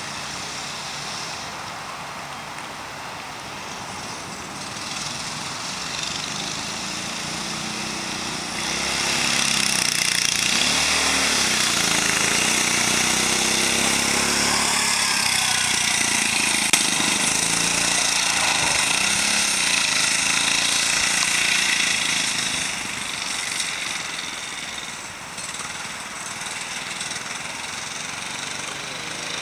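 Go-kart's small engine revving up and down as it is driven hard, growing much louder as it passes close about a third of the way in, then fading back as it drives off down the street.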